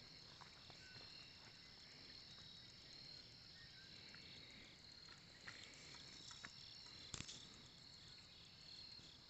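Faint insects, crickets by the sound, chirping steadily in even pulses. Three faint short knocks come a little past halfway, the last the strongest; they are taken for something knocking on a tree across the lake.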